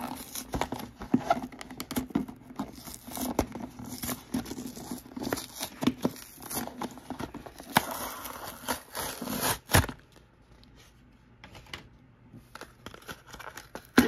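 Cardboard backing of a blister-card toy package being torn by hand, with the plastic blister crinkling as the toy car is pried out. Busy tearing and crackling for about the first ten seconds, then quieter scattered clicks and rustles.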